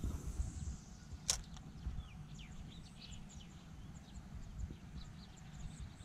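Faint scattered bird chirps over a low rumble, with one sharp click about a second in.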